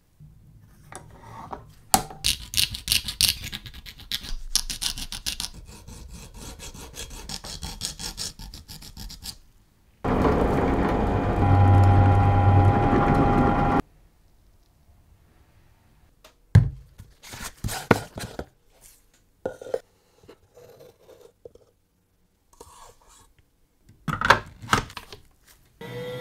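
Edges of a small sheet-metal plate being worked by hand with rapid scratching, filing strokes. Then a motorised tool runs loudly and steadily for about four seconds and stops abruptly, followed by scattered clicks and taps of handling.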